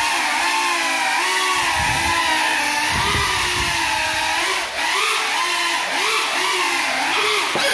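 Tiny FPV quadcopter's motors whining, the pitch rising and falling constantly with the throttle as it flies on broken propellers.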